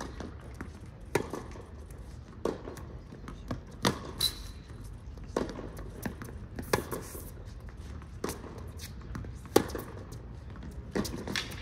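Tennis rally: a string of sharp knocks from racket strings striking the ball and the ball bouncing on the hard court, about one every second or so.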